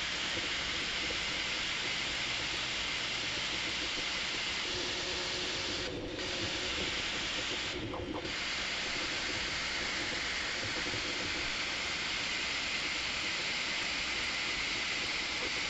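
Bambu Lab A1 3D printer running a print, its toolhead motors and fans sped up into a steady, even whirring noise. The noise briefly dips about six and eight seconds in.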